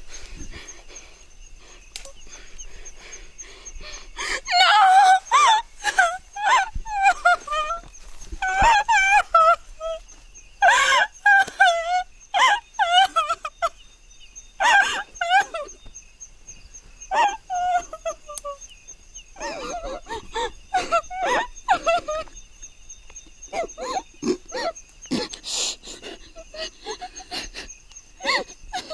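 A woman wailing and sobbing in distress: loud, drawn-out cries with a wavering pitch, coming in long clusters with short breaks between them.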